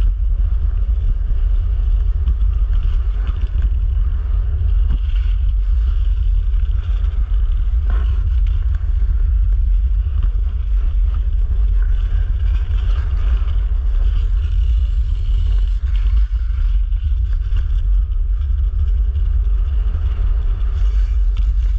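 Steady, loud rumble of wind buffeting a wing-mounted camera's microphone and skate blades running over clear lake ice during a fast wing-skating run.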